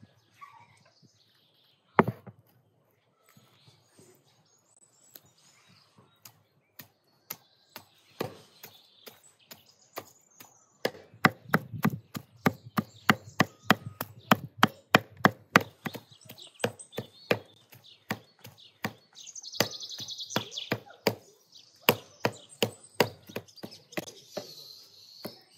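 Cleaver chopping raw meat on a wooden stump block, mincing it by hand. The blows are sparse at first, then come quickly, about two to three a second, from roughly eleven seconds in. Birds chirp faintly.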